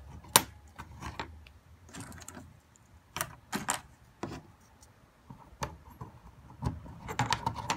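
A handful of sharp, scattered clicks and light clatter from small stamped-metal O gauge track ties being handled and set down on a tabletop as insulators are slid into them.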